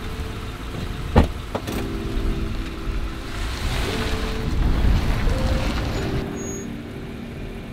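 A car door shuts with a knock about a second in. Then the vehicle runs with a low rumble that swells in the middle and eases off, over faint background music.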